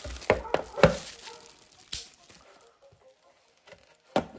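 Trading cards and their packaging being handled: a few sharp taps and light rustles, the loudest about a second in, with a quiet stretch in the middle.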